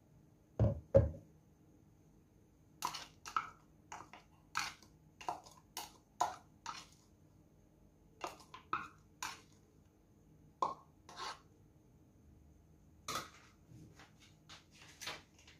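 Two low knocks about a second in, then a metal spoon scraping and tapping inside a plastic measuring cup in a string of short, irregular clicks and scrapes.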